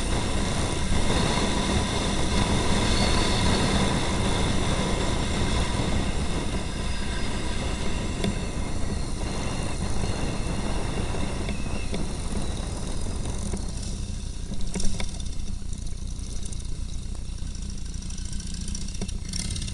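Motorcycle engine and wind noise heard from a camera on the moving bike, easing off in the last several seconds as the bike slows to a stop, with a couple of short knocks near the end.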